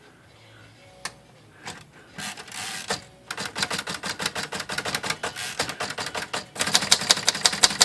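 Royal Saber manual typewriter carriage stepping along in rapid, even clicks of the escapement, after a short sliding rush about two seconds in; the clicks grow louder and quicker near the end. The carriage is being run along the line to check that the freshly wound mainspring and reattached draw band pull it with enough tension to the end of its travel.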